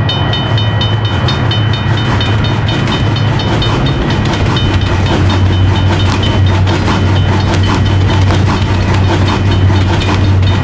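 A train running past on the rails, a steady low rumble with fast, even rhythmic clicking and ringing over it.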